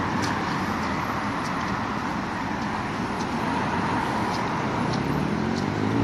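Steady road traffic noise from cars on a wet road. Near the end a vehicle engine rises in pitch as it accelerates.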